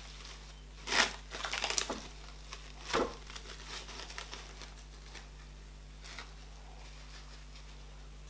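Plastic cling film crinkling as it is peeled off a ball of garri fufu. The crinkles come in bursts, the loudest about a second in and another about three seconds in, then tail off to a few small rustles.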